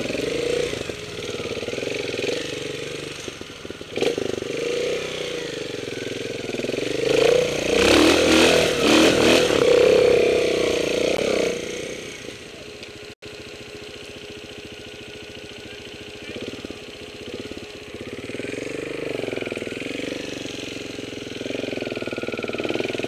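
Trials motorcycle engine being ridden over a forest trail, its revs rising and falling with the throttle. It is loudest for a few seconds about a third of the way in, then drops suddenly to a quieter, steadier run about halfway through.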